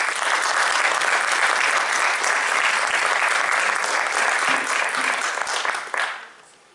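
Audience applauding for about six seconds, then dying away quickly.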